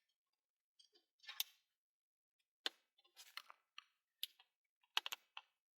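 Scattered light clicks and taps as small 3D-printer parts are handled during disassembly, with near silence between them.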